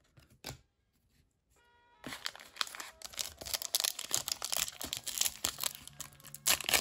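A foil trading-card pack wrapper being torn open and crinkled by hand: a dense crackling that starts about two seconds in, after a nearly quiet start broken by a single click.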